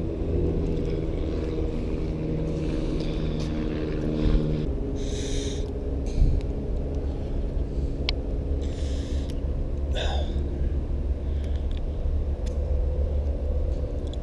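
Low steady engine hum over a rumble, its pitch stepping down a little under five seconds in. Two short hisses and a couple of sharp clicks are heard over it.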